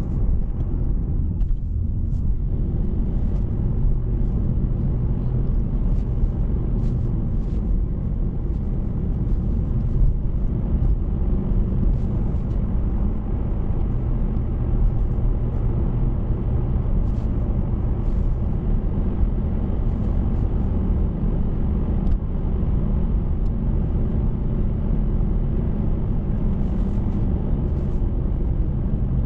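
Steady low rumble of a car on the move, road and engine noise, with faint light ticks now and then.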